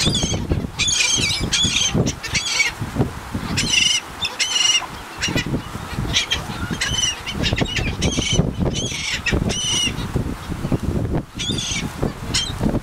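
A flock of laughing gulls squawking in short, repeated calls, several birds at once and in clusters every second or so, as they crowd in to be fed, with some wing flapping.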